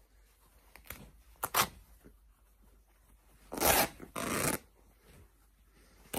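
Superdry hoodie fabric being ripped apart by hand in short tears: two brief rips in the first two seconds, then two longer, louder rips a little past the middle, and another short rip at the very end.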